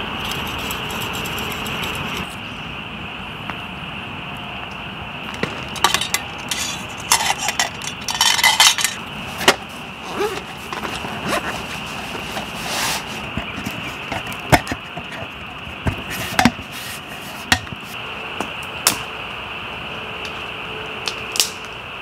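Scattered metal clinks and knocks of a steel camp pot, lid and cooking utensils being handled at a campfire, some in quick clusters. A steady high-pitched chorus of frogs goes on behind them.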